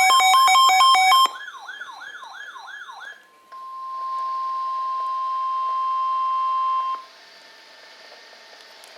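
A wailing siren-like alarm with stacked beeping tones cuts off just over a second in, then fainter repeating falling sweeps. After a short gap comes about three and a half seconds of steady single-pitch alert tone: NOAA Weather Radio's 1050 Hz warning alarm tone, heard through a weather radio receiver. The tone gives way to faint radio hiss.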